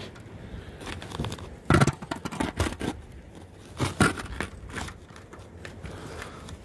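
Small wood chips and bark being handled and dropped onto a smoking birch-bark fire: scattered sharp clicks and scrapes, with two louder knocks about two and four seconds in.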